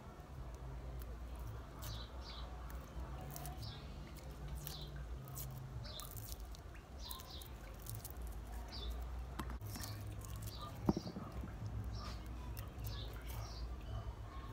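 Small birds chirping in short, repeated calls over a steady low rumble of background noise, with a single sharp click about eleven seconds in.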